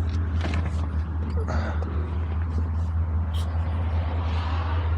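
1998 BMW E38 7 Series engine idling, a steady low hum heard inside the cabin, with scattered rustling and knocks as someone settles into the back seat.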